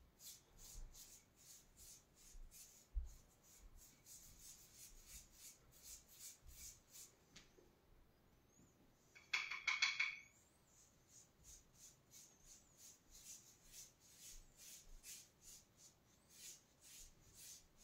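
Paintbrush stroking chalk paint onto a wall: soft, quick brush strokes, several a second. A louder scraping noise lasting about a second comes a little past halfway.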